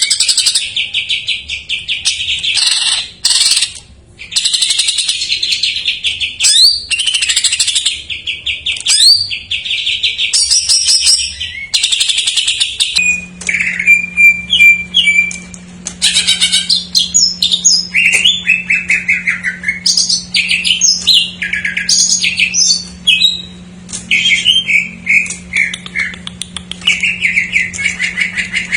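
Green leafbird (cucak ijo) singing a loud, unbroken stream of fast trills and varied chattering phrases, its song filled with mimicked calls of other birds. A low steady hum comes in about halfway through.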